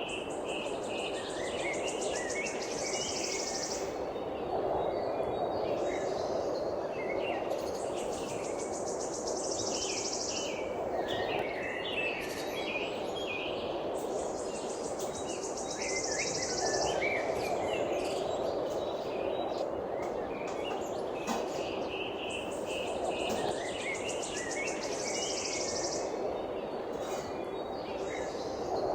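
Birds chirping over a steady rushing background hiss. A high, pulsing trill, of the kind insects such as cicadas or katydids make, comes in for two or three seconds about every six or seven seconds.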